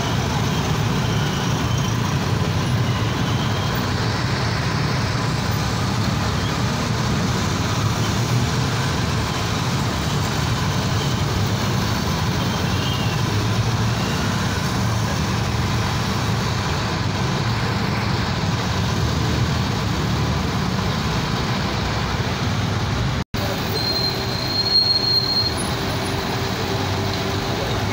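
Steady street traffic noise with a low drone of vehicle engines as motorcycles ride past. A short high tone sounds near the end.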